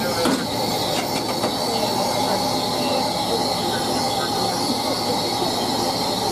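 Steady hiss of steam escaping in the cab of steam locomotive C11 325, with a few light clicks in the first second and a half.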